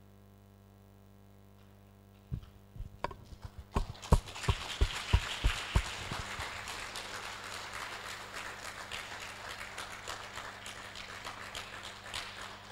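Audience applauding: a few separate sharp claps about two seconds in, then many people clapping together, slowly thinning out.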